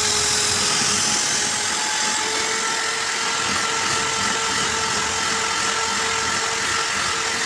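Handheld power drill running at steady speed, its diamond-coated tube bit grinding through a mirror: a constant motor whine over a gritty grinding noise. The hole is being drilled from one side only, which leaves large chips on the back of the glass.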